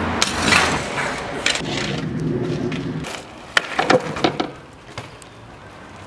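Fixed-gear bike tyres rolling on concrete, with sharp knocks and thuds as the bike drops off ledges and lands. The loudest cluster of impacts comes about three and a half to four and a half seconds in.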